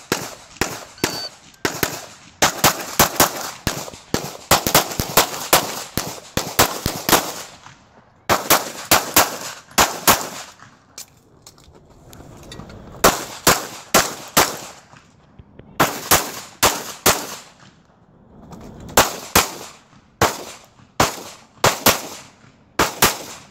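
Rapid strings of pistol shots from an Open-class competition pistol, fired in quick bursts of several shots each. Gaps of one to three seconds fall between the bursts.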